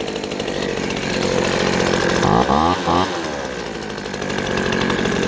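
Craftsman handheld leaf blower's small two-stroke engine running, revved up and back down briefly about halfway through. It runs again now that a loose bolt that was leaking compression has been tightened.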